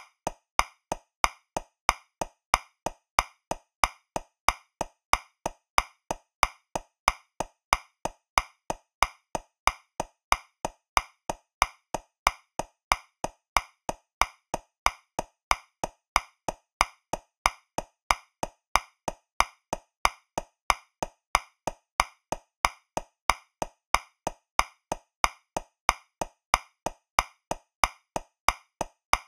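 Metronome clicking at 185 beats per minute, about three clicks a second, in 2/4 time: every other click is accented and louder, marking the first beat of each two-beat bar.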